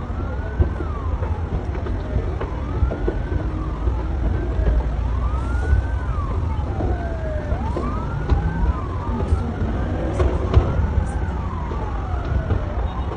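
Several emergency-vehicle sirens wail at once, their pitches rising and falling out of step with each other, over a steady low rumble.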